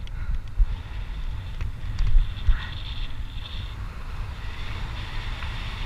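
Wind buffeting the microphone of a mountain bike's action camera as the bike rolls along a paved road, with tyres rolling on the asphalt. A few louder knocks, the strongest about two seconds in.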